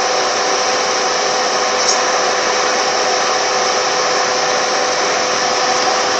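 Car air-conditioning blower running steadily: a loud rush of air with a steady whine.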